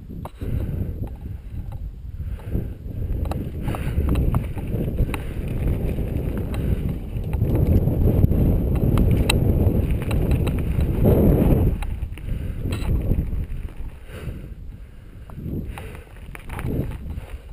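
Mountain bike riding down a dirt trail, heard from a helmet-mounted camera: wind rumble on the microphone with the tyres rolling over dirt and grass, and scattered sharp clicks and rattles. It is loudest from about eight to twelve seconds in and eases off near the end.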